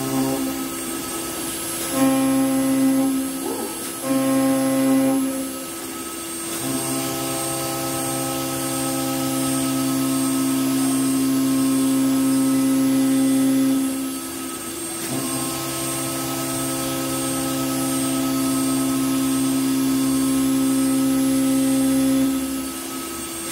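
The electric spindle of a five-axis CNC router whines at a steady pitch while its bit cuts a wooden furniture part. The sound swells whenever the cutter is in the wood: three short passes first, then two long cuts of about seven seconds each, with brief dips between them.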